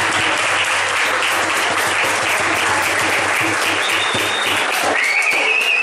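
A crowd and performers applauding, a dense steady clatter of many hands clapping. Near the end a high-pitched tone rises and holds over the clapping.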